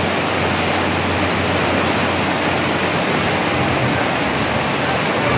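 Floodwater of an overflowing monsoon storm-water drain rushing past, a loud, steady noise of fast-moving water.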